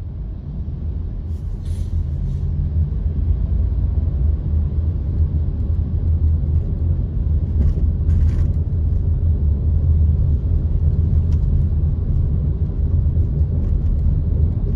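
Low, steady rumble of a car's engine and tyres heard from inside the cabin, growing louder over the first few seconds as the car moves off from a standstill in traffic, then holding steady at driving speed.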